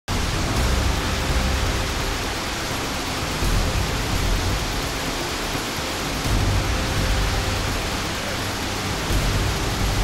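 A heavy, rain-fed waterfall pouring over rock ledges: a steady, full rushing of water, with a deep rumble underneath that swells and eases every few seconds.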